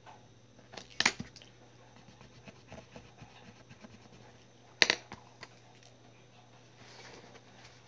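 Writing by hand in a paper notebook: light pen scratching and small ticks, with two sharp clacks, about a second in and near five seconds, as pens are swapped and set down on the desk.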